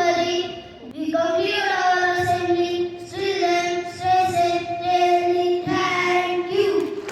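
Young school students singing a slow melody in long held notes, one after another.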